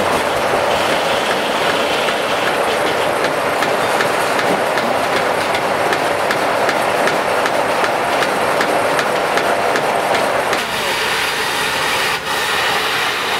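Steam-powered sawmill running: a loud, steady mechanical noise with fast, regular clicking. About ten and a half seconds in the sound changes and a steady hum comes in.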